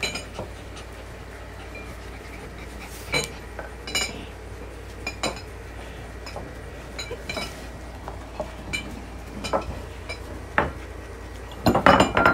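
Puppies nosing and licking at small ceramic food bowls: scattered sharp clinks and knocks of the bowls, with a quick cluster of them near the end.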